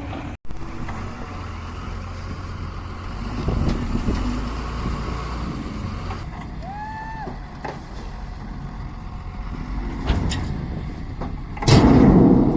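Excavator's diesel engine running steadily under load, with a short whistling tone midway and a loud, heavy crash near the end.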